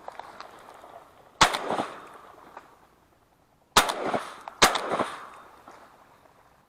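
Three shotgun shots at ducks: one about a second and a half in, then two more about a second apart near the middle, each followed by a rolling echo.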